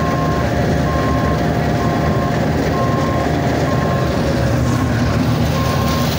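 Compact loader engine running steadily at working speed, with a reversing alarm beeping about once a second.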